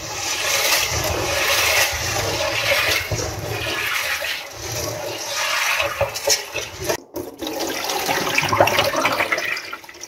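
Kitchen tap running into a stainless steel bowl of popcorn kernels while hands stir and rub the kernels in the water to wash them, with small clicks and rattles of kernels. The sound breaks off briefly about seven seconds in.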